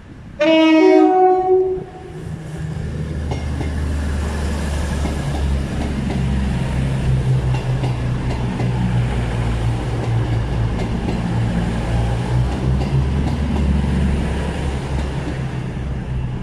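Diesel passenger train sounding a two-tone horn, a lower note then a higher one, for about a second and a half near the start. It then runs through the station, its diesel engines giving a steady low drone over the rail noise.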